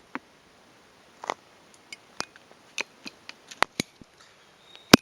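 Hands handling a plastic model kit box and its contents: scattered sharp clicks and taps at irregular intervals, the loudest one near the end.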